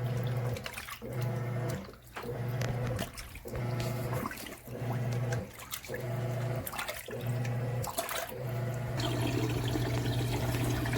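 Giantex portable washing machine's motor running in bursts of about a second with brief pauses, the wash impeller churning the laundry in water, which sloshes. Near the end the hum turns steady as the built-in drain pump starts emptying the tub.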